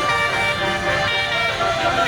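Basuri multi-tone telolet bus horn playing a melody, several horn notes sounding together and stepping in pitch, over the low rumble of the bus.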